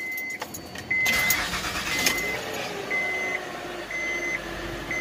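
A 2007 Honda Pilot's 3.5-litre V6 is started: the engine cranks and catches about a second in, then settles to an idle. A warning chime beeps about once a second throughout.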